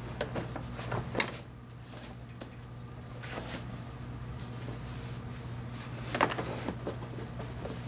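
Handling noise at a hospital bed as a sheet is drawn over the resident: soft rustling of bedding with a few sharp knocks, the loudest about six seconds in, over a steady low hum.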